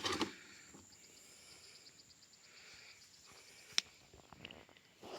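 Quiet outdoor ambience with a faint run of rapid, high chirps for a couple of seconds and a single sharp click about four seconds in.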